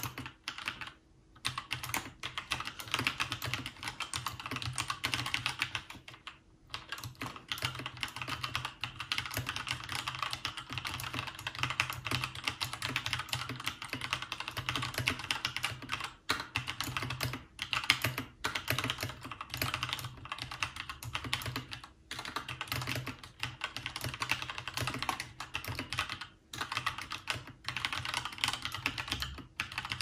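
Continuous typing on a Keychron K2 mechanical keyboard with Gateron Red linear switches: a quick, steady clatter of keystrokes, broken by two short pauses near the start.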